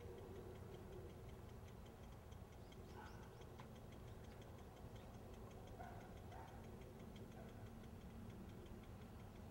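Near silence with a faint, quick, even ticking and a low rumble.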